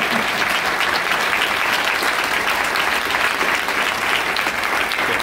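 A large audience applauding steadily: a dense wash of many hands clapping at once.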